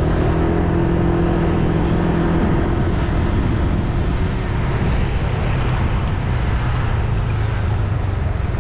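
Motor scooter engine running amid road traffic noise. A steady engine hum holds for the first couple of seconds, then gives way to an even rush of road and wind noise with a lower hum.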